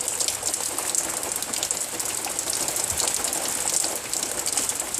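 Rain falling steadily, a dense hiss of many drops pattering.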